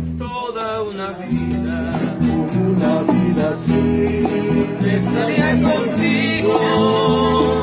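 Bolero played live on two nylon-string acoustic guitars, chords and a picked melody, with maracas shaken in a steady rhythm.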